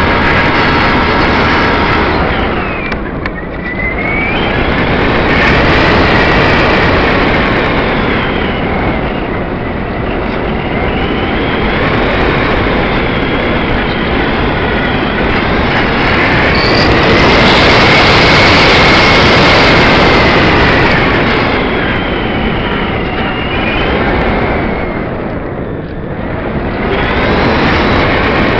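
Loud rushing wind and propeller noise over a small camera mounted on the wing of a Parkzone Radian electric glider in flight, with the high whine of its electric motor rising and falling in pitch. The noise dips briefly about three seconds in and again near the end.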